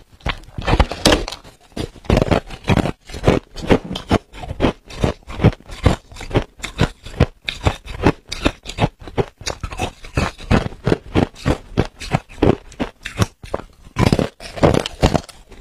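Crisp crunching of ice being bitten and chewed close to the microphone, a quick unbroken run of several crunches a second.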